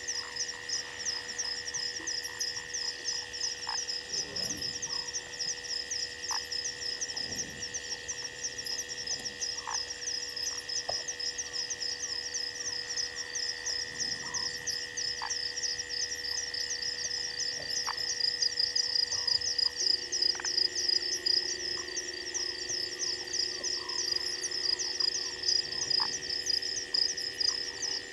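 Night chorus of frogs and insects: a rapid, evenly pulsing high trill over steady high drones, with scattered short calls, and a lower steady drone that joins about two-thirds of the way through.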